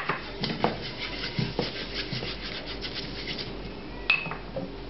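A paper towel wiping oil around a nonstick frying pan: a run of uneven rubbing and scuffing strokes, then a light clink with a short ring about four seconds in.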